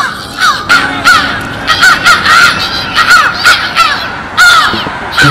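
A flock of birds calling, many short calls in quick succession, two or three a second, some overlapping.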